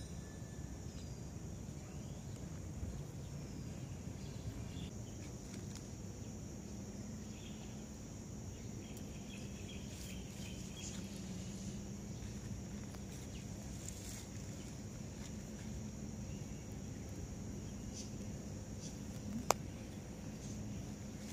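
Steady high-pitched insect drone with a low rumble underneath, and one sharp click near the end.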